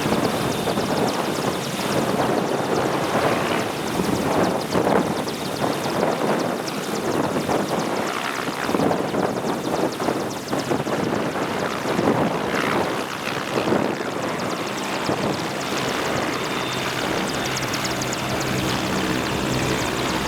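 AgustaWestland AW101 Merlin helicopter running: rotor and three turboshaft engines. The noise swells and eases unevenly at first, then settles steadier near the end.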